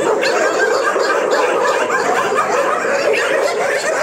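A chorus of many kennelled shelter dogs barking and yelping at once in a dense, unbroken din, set off by feed being brought round to the pens.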